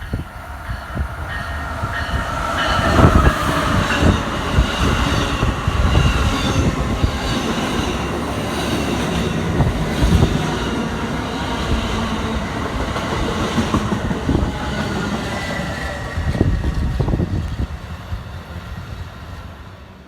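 Amtrak Silver Star passenger train passing at speed: a steady rush of wheels on rail with clickety-clack over the joints and some thin high squeal tones. It fades away over the last couple of seconds as the train goes by.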